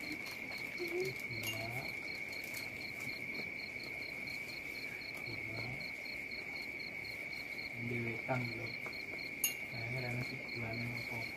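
Insects trilling steadily: one unbroken high-pitched note, with a pulsing chirp above it at about four pulses a second.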